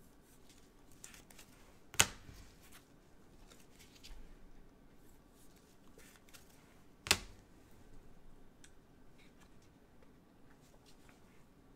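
Trading cards and a clear plastic sleeve handled with gloved hands: faint rustling, sliding and scratching, with two sharp clicks about two seconds in and again about five seconds later.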